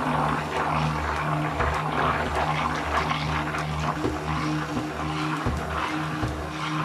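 A 600 W immersion (stick) blender running continuously in a plastic beaker, a steady motor hum with the churning of a runny kefir, sour cream and egg mix as it is whipped smooth.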